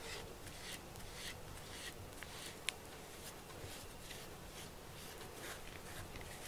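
Pink grooming brush raking through a cat's fur in faint, quick strokes, about three a second. One sharp click about two and a half seconds in.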